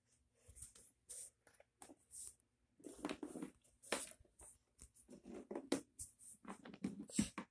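Faint, irregular rustling, scraping and light tapping: handling noise as plastic toy dinosaur figures are moved about on a wooden floor and the phone is carried.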